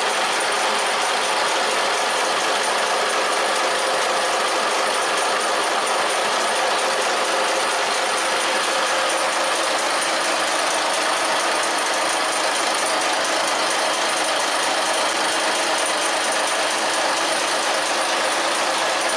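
Komatsu six-cylinder turbocharged marine diesel engine running, a loud, steady mechanical din heard up close in the boat's engine room.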